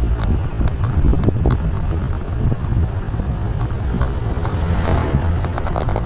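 A motorcycle passes close by about two-thirds of the way through, swelling and fading, over a steady low rumble.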